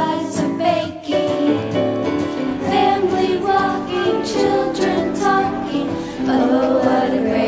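Christmas song with singing over instrumental backing: a children's holiday song written and recorded by a young hospital patient.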